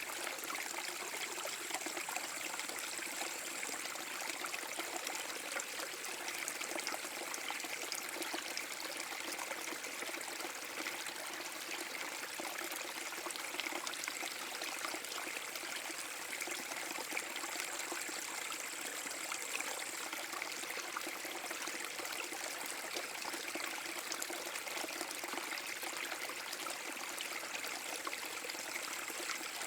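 Small forest brook running over a mini waterfall: a steady rush and trickle of flowing water.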